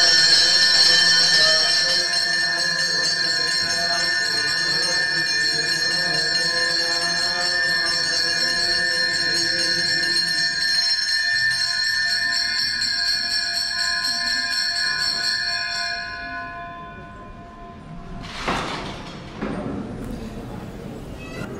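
Temple bells ringing continuously during aarti, a dense steady ringing that stops about sixteen seconds in. Two brief noisy sounds follow near the end.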